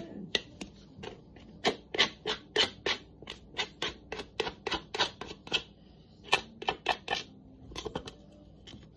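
Sticky sourdough being scraped out of its bowl onto a floured table: a quick run of short scrapes and clicks, about three a second, with a brief pause a little past halfway.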